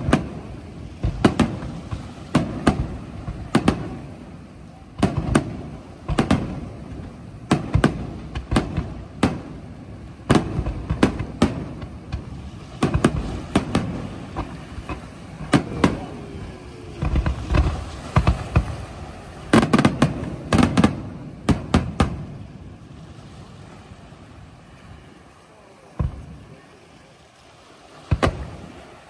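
Aerial firework shells bursting in quick succession, a rapid volley of sharp bangs that is densest around two-thirds of the way through. The volley then thins to a few single bangs near the end.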